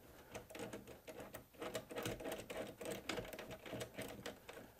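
Rapid, irregular metallic clicking and rattling as a rack screw is worked into a cage nut on the rack rail.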